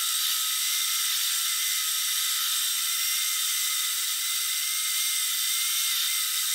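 Bandsaw running and cutting a laminate flooring board, trimming the tongue strip off its edge: a steady, high-pitched noise.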